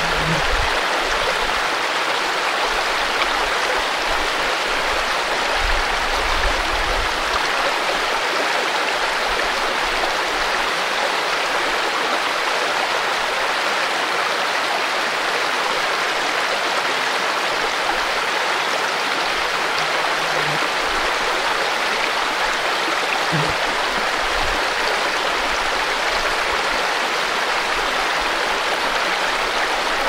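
Shallow rocky stream running over and between boulders: a steady rushing, babbling flow of water.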